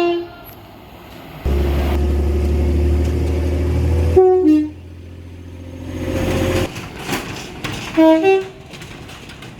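Train horns in a run of short edited clips: a brief toot right at the start, a loud steady low-pitched sound from about a second and a half to four seconds, a short two-note toot just after, the rising rush of a passing train, and another short two-note toot about eight seconds in.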